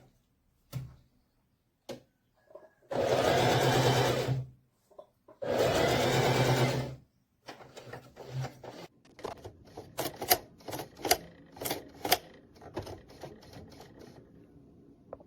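Singer Heavy Duty 4432 electric sewing machine running in two bursts of about a second and a half each, with a steady motor hum. Afterwards comes a run of irregular clicks and knocks.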